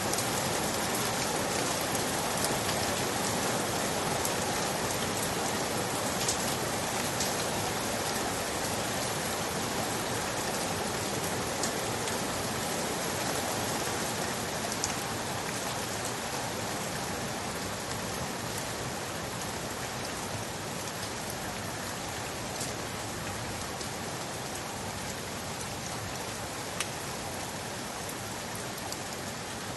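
Steady rain falling, an even hiss with scattered sharper drop ticks, easing off slightly in level over the stretch.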